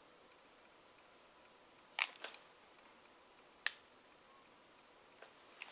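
Nickels clicking as they are set down on coins in a plastic tray: a quick cluster of clicks about two seconds in, then one more click over a second later.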